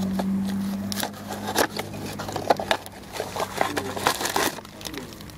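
Cardboard box of a replacement ignition lock cylinder being handled and opened: rustling and scraping with scattered sharp clicks, a denser rustle about four seconds in. A low steady hum runs underneath for the first three seconds.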